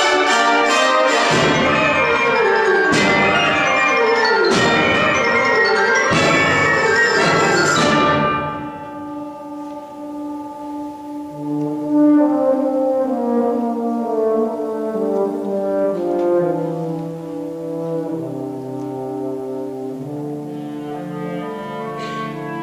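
Wind ensemble playing. It opens at full volume with brass, percussion strikes and sweeping downward runs. About eight seconds in it drops to a quieter passage of long held notes.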